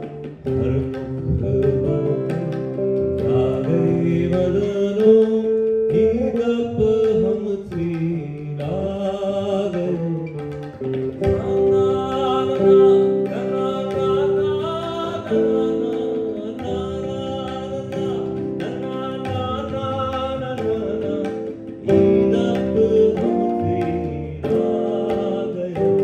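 A man singing live into a microphone in long held and gliding notes, accompanied by electric guitar and tabla.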